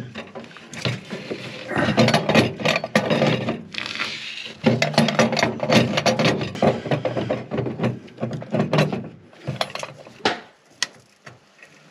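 Hands handling and fitting the plastic cover of an immersion heater over its element head and thermostat: a dense run of clicks, knocks and scraping. It thins out in the last two seconds.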